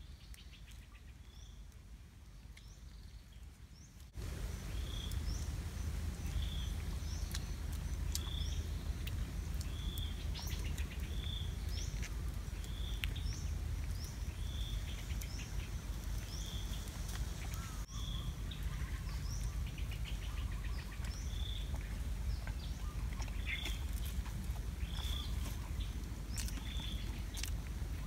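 Outdoor ambience with a bird repeating a short, high call about once a second, plus fainter chirps, over a steady low rumble of background noise that steps up in level about four seconds in.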